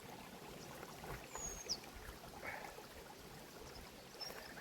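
Faint creek water trickling, with a few soft knocks and a short high falling whistle about a second and a half in.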